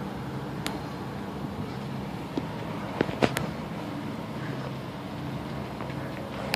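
A steady low engine hum, with three sharp clicks or pops close together about halfway through.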